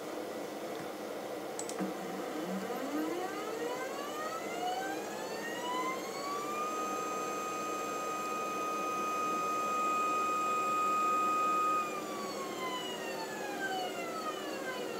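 Stepper motor on a scratch-built Arduino motion control camera rig, whining as it drives an axis. The pitch rises as the motor speeds up, holds steady for about five seconds, then falls as it slows to a stop near the end, over a low steady hum.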